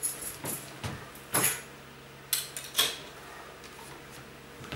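Household objects being handled: a few separate knocks and clatters, the loudest about a second and a half in, over a faint steady hum.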